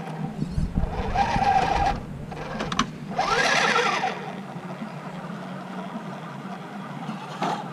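Brushless motor and geared drivetrain of an Axial UMG10 RC rock crawler whining under throttle in two bursts as it climbs rock, the second rising and then falling in pitch. A sharp click comes just before the second burst.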